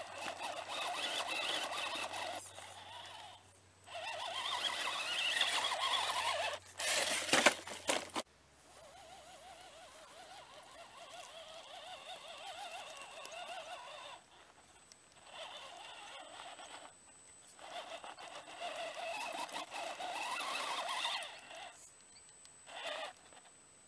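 Radio-controlled scale rock crawler driven in short bursts of throttle: its electric motor and geartrain whine while the tyres scrabble over rock. A cluster of sharp knocks comes about seven seconds in, the loudest moment. After that the bursts are softer.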